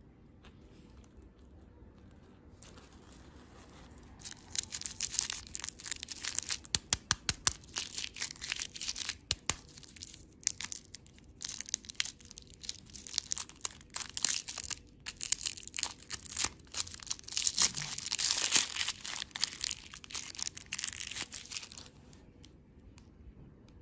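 Candy packaging being crinkled and torn open: a dense run of sharp crackles that starts about four seconds in and stops shortly before the end.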